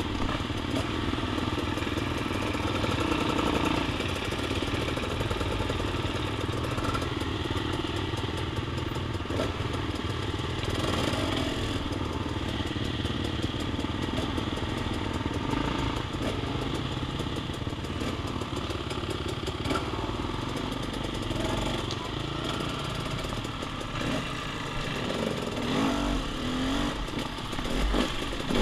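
Dirt bike engine running at a fairly steady pace while riding a woods trail, with a few louder knocks near the end.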